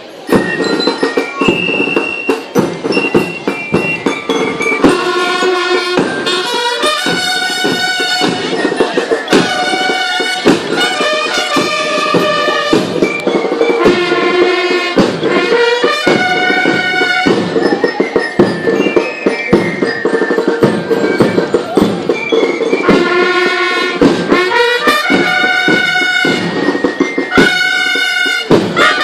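Brass band playing with drums: trumpets and other brass sound chords in short repeated phrases over steady drumming.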